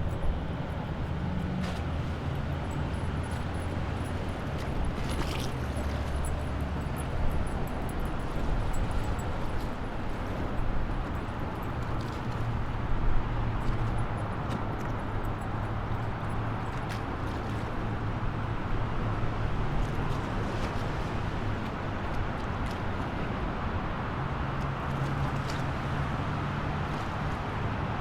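Steady low rumble of a motor vehicle running, with outdoor road-like noise and a few faint clicks over it.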